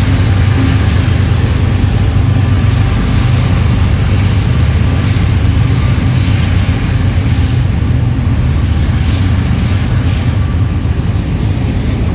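Long double-stack intermodal freight train rolling past close by: a steady, loud low rumble with wheel and rail noise.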